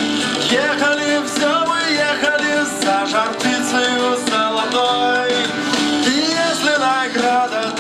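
Recorded Russian-language pop song playing, a stretch without lyrics.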